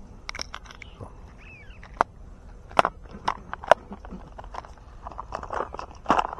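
Footsteps and rustling on dry ground, with a few sharp clicks around the middle and a burst of louder rustling near the end.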